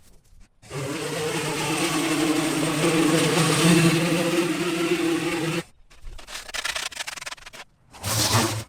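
Small gas engine running with a strong spraying hiss for about five seconds, then cutting off suddenly. Irregular scrapes and knocks follow.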